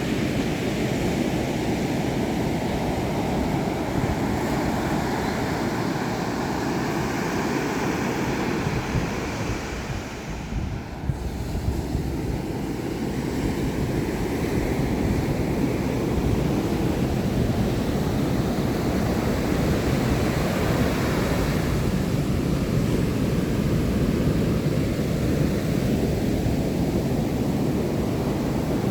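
Ocean surf breaking and washing up a sandy beach, a steady rushing noise that eases briefly about ten seconds in, with wind buffeting the microphone.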